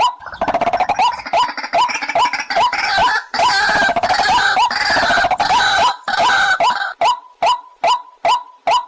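White-breasted waterhen calling: a loud, monotonously repeated note a little over twice a second. From just after the start until about two seconds before the end, harsher overlapping croaking calls join in, and then the repeated note carries on alone.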